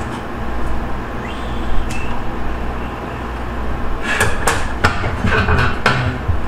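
Steady low room hum, with a short cluster of close clicks and scraping handling noises about four to six seconds in as a tool is picked up at the bench.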